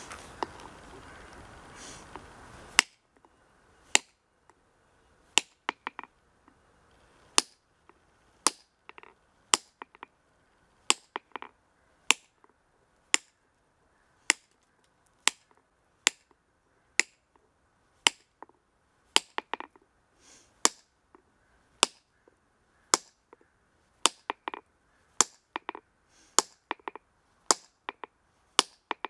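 Steel hand hammer striking a granite block along a marked split line. The blows come as sharp clicks about once a second, some in quick pairs, each with a brief ring: hand-splitting granite by tapping along the line.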